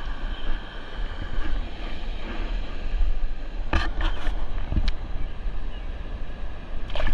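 Steady rushing of high water pouring over a dam, mixed with wind buffeting the microphone. A few short sharp knocks come in the middle.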